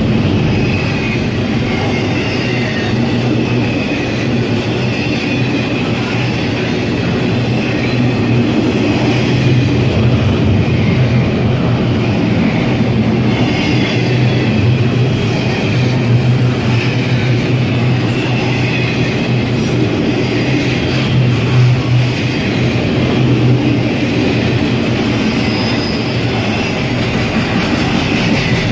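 CSX double-stack container freight train passing close at speed: a steady rumble of steel wheels rolling on rail, with faint wavering high-pitched wheel squeals over it.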